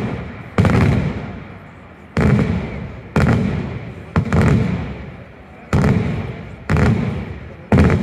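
Daytime fireworks: aerial shells bursting overhead with loud bangs, seven of them at roughly one-second intervals. Each is followed by a rolling echo that dies away.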